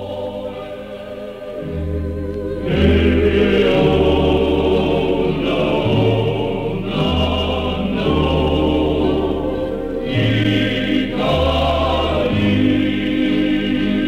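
A choir singing sustained notes over a low, steady bass line, from an old recording that sounds muffled with no high tones.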